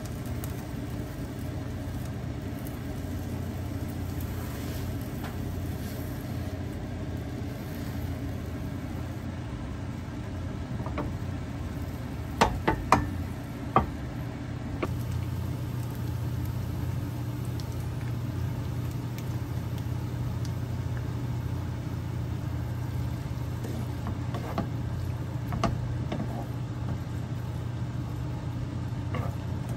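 Egg frying in a square tamagoyaki pan on a gas stove: a faint sizzle over a steady low hum, with a few sharp clinks of utensils against the pan about halfway through.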